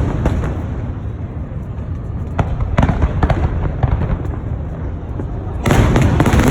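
Fireworks exploding over a steady low rumble: a few separate sharp bangs in the middle, then a dense volley of bursts near the end.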